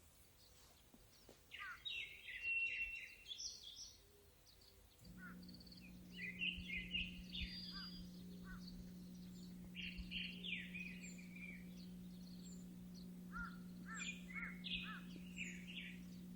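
Small birds chirping in short bouts of quick calls, some with falling notes. About five seconds in, a steady low mechanical hum starts and keeps going under the chirps.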